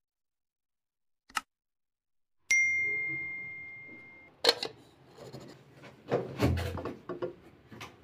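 A single clear ding about two and a half seconds in, ringing out and fading over nearly two seconds. It is followed by sharp clinks and knocks of glassware being handled and set down.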